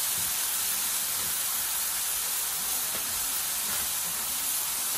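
Thin smashed beef patties sizzling steadily on a hot Blackstone flat-top griddle, just after being turned to sear the second side.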